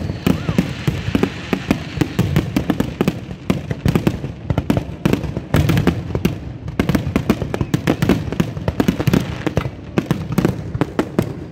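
Fireworks going off in a fast, dense run of bangs and crackles, several a second, without a pause.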